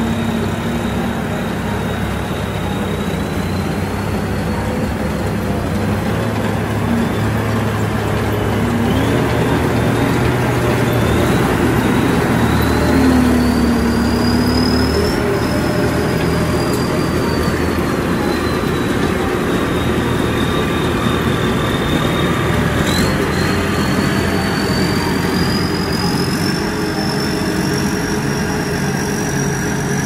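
Tracked rice combine harvester running steadily under power, its engine hum joined by a thin high whine that wavers in pitch and climbs near the end.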